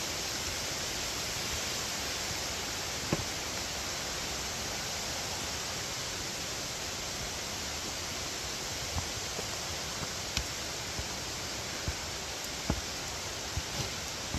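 Steady rushing of a creek and its falls, an even hiss with no pauses. Several short sharp clicks or knocks come through it, mostly in the second half.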